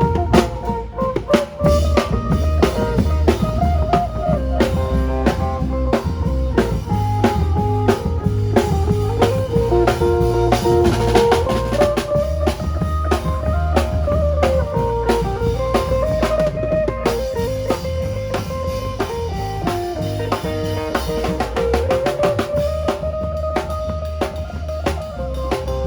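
Isan band playing lam phloen: an amplified phin (Isan lute) carries a running melody over a drum kit with a steady bass drum and a bass line.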